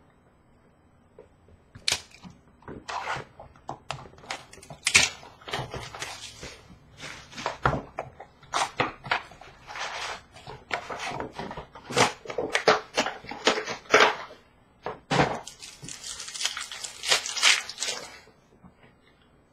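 A hockey card box and its packs are handled and opened by hand: a string of sharp cardboard clicks, snaps and rustles, then a stretch of plastic wrapper crinkling and tearing near the end.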